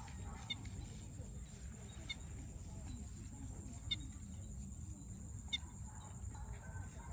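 A bird calling repeatedly, a short call about every one and a half to two seconds, over a steady high hiss and low background rumble.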